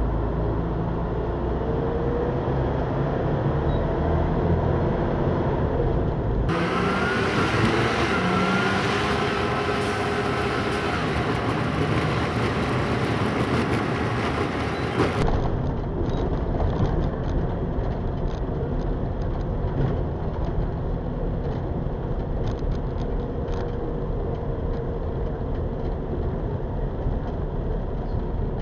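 Express bus running along its route: steady engine and road noise, with the engine note rising several times between about two and nine seconds in.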